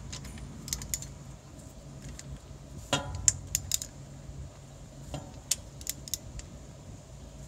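Scattered metallic clinks and taps of a wrench and socket knocking against metal as they are fitted onto the upper starter mounting bolt, with a sharper knock about three seconds in.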